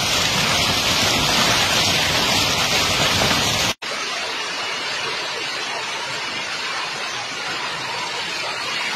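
Hailstorm: hail and heavy rain pouring down and pelting the ground, a dense steady hiss. It cuts off abruptly a little under four seconds in and resumes slightly quieter.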